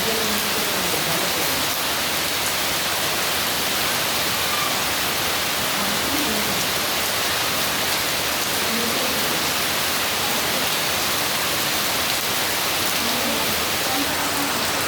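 Heavy rain falling steadily, an even, unbroken hiss of a downpour.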